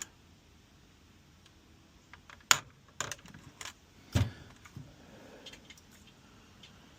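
A handful of sharp clicks and light knocks as the plastic parts of a car instrument cluster are handled and moved about, the loudest about two and a half seconds in and again about four seconds in.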